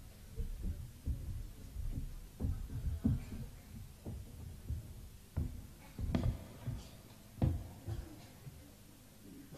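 Irregular dull thuds and knocks of people moving about on a stage platform, most likely footsteps, picked up by the stage microphones. The two sharpest knocks come about six and seven and a half seconds in. A steady low electrical hum runs underneath.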